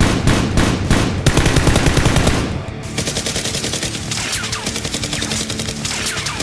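Rapid automatic gunfire sound effects, a fast rattle of shots, dubbed over a Nerf blaster shootout, with a brief break just before three seconds in. Faint background music runs underneath.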